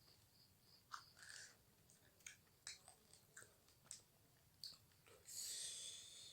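Faint close-up chewing of food, with scattered small wet mouth clicks. Near the end comes a louder hissing noise lasting about a second.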